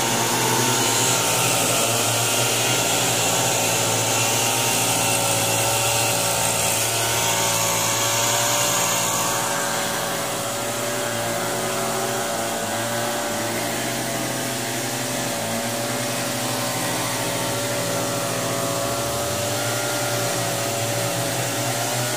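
Backpack two-stroke mist blower running steadily at high speed, blowing herbicide spray over thick grass. It makes a constant engine tone under a loud airy rush, and the hiss eases a little about halfway through.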